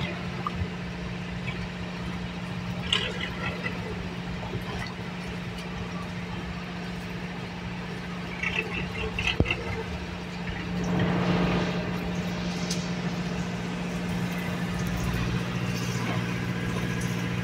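A boat engine running steadily with a constant hum, with water lapping and splashing; the noise swells briefly about eleven seconds in.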